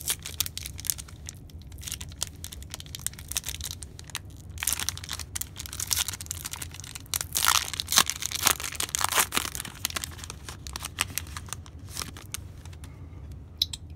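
Panini Prizm football card pack's foil wrapper being torn open and crinkled by hand, in irregular bursts of crackling that are loudest about halfway through.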